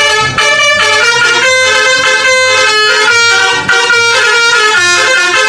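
Multi-tone bus "telolet" horn playing a tune of held notes that step up and down in pitch.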